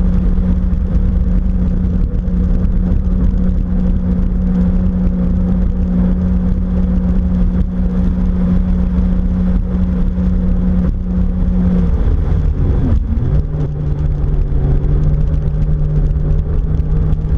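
Jet ski engine running steadily over a heavy low rumble. About twelve seconds in, the engine note drops, wavers briefly and settles at a lower, steady pitch as the rider eases off the throttle.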